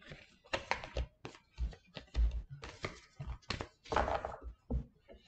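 Tarot cards being handled and sorted: an irregular run of clicks, taps and soft thumps as cards are put down and picked through, with a longer rustle of cards about four seconds in.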